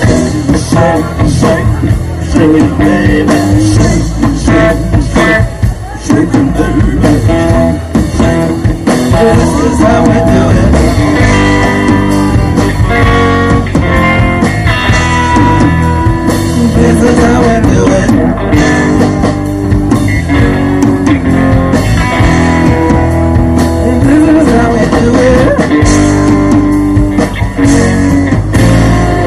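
Live rock-and-roll band playing a blues-style number on electric guitars, electric bass and drum kit, amplified through stage speakers.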